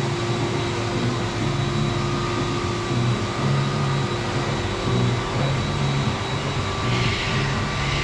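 Steady mechanical hum with a rushing noise and a few constant tones, typical of indoor cooling or ventilation machinery, over a low uneven rumble.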